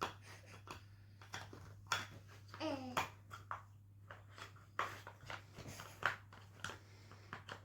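Small plastic toy pieces clicking and knocking as they are handled and fitted together, in quick irregular taps, with a brief child's vocal sound a bit over two and a half seconds in and a steady low hum underneath.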